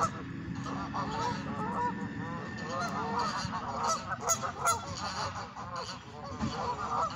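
A flock of geese honking, with many short calls overlapping one another.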